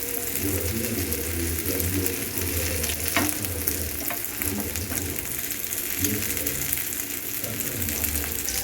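Vanjaram (seer fish) pieces shallow-frying in groundnut oil on a dosa tawa: steady sizzling with scattered small crackles.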